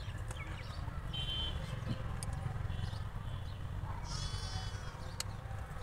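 Engine oil pouring from a jug through a funnel into the engine's filler, a steady low gurgle. An animal bleats twice, high-pitched, about a second in and again about four seconds in.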